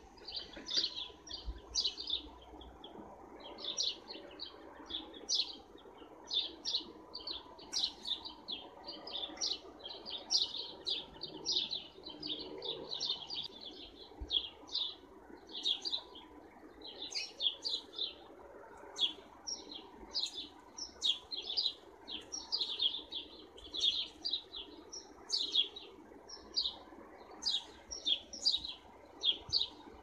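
Sparrows chirping in a continuous string of short, high chirps, several a second.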